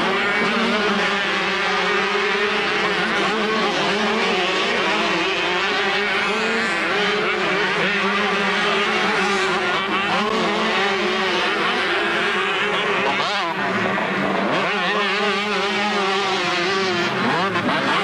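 Several 125cc two-stroke motocross bikes racing, their engines revving up and down over one another. About thirteen seconds in, one engine note drops and climbs again.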